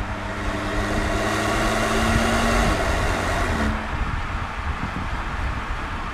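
Engine and exhaust of a 2024 Audi S3 sedan, its turbocharged 2.0 TFSI four-cylinder running as the car drives at speed, with tyre and wind noise. The engine note holds steady, then breaks off a little before halfway, and the rushing noise drops suddenly soon after.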